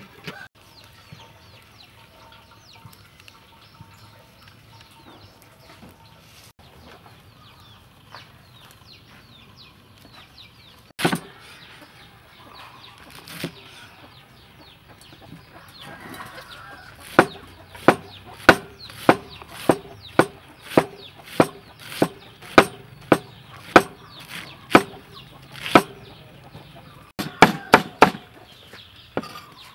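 Cleaver slicing cabbage on a wooden chopping board: after a single knock, a steady run of sharp chops at about two a second fills the second half, ending in a quick flurry. Chickens cluck and chirp faintly in the background.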